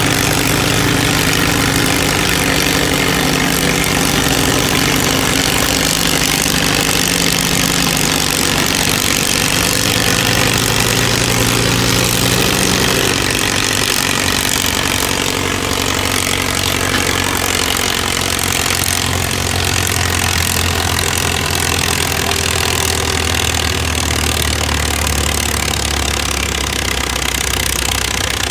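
Vintage tractor engine running hard under load as it pulls a weight-transfer sled; about halfway through its note drops lower and stays there as the engine lugs down against the sled's building drag.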